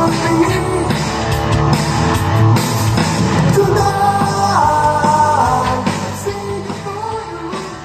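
A song with a singing voice playing through a pair of bookshelf speakers driven by an Aiyima A07 MAX (TPA3255) amplifier, getting quieter over the last couple of seconds.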